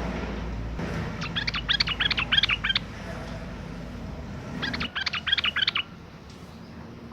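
Sooty-headed bulbul (trucukan) singing: two bursts of quick chattering notes, each lasting about a second and a half, the first about a second in and the second about five seconds in. This is a lure song, used to set other trucukan calling.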